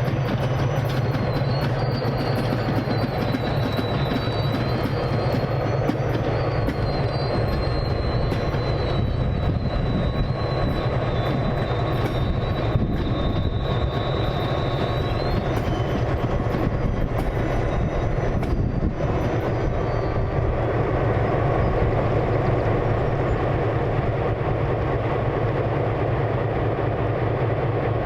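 The Pan Am Railways Office Car Special passenger train rolling past, a steady rumble of wheels on rail. A thin, high wheel squeal is held through roughly the first half and stops about fifteen seconds in.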